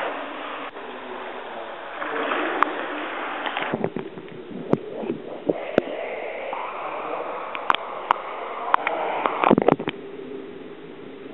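Pool water splashing and sloshing close by as a swimmer does front crawl, with several sharp clicks and knocks in the middle. Near the end it settles into a quieter, steady muffled hiss heard from under the water.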